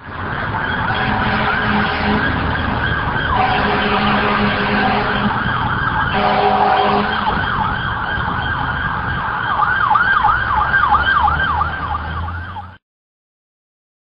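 Emergency vehicle sirens sounding, turning to a fast, rapidly repeating up-and-down yelp in the last few seconds before cutting off suddenly.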